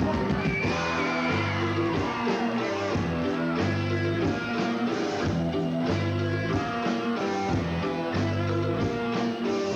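A rock band playing live between verses: an electric guitar lead line with bent notes over a steady bass and drum groove.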